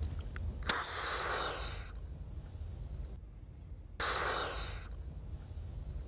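Breath-activated Autohaler inhaler firing with a sharp click as the user breathes in through it, followed by about a second of rushing breath. A second rush of breath, just as long, starts abruptly about four seconds in.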